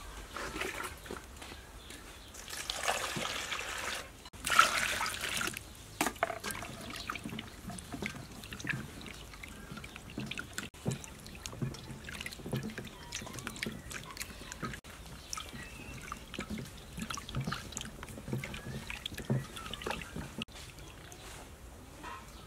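Tomatoes being washed by hand in a stainless steel bowl of water: water sloshing, trickling and dripping, with many small splashes and knocks as the tomatoes are turned and lifted out. The loudest splashing comes about four and a half seconds in.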